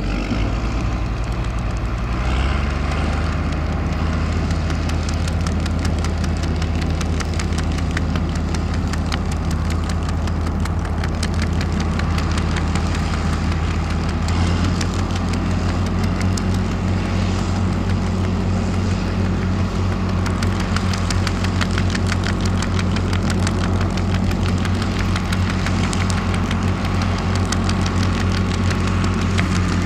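John Deere 4640's turbocharged six-cylinder diesel running while pulling a Kuhn Knight manure spreader. The engine note rises in two steps, about two seconds in and again about halfway through, and a rapid clatter joins it in the second half.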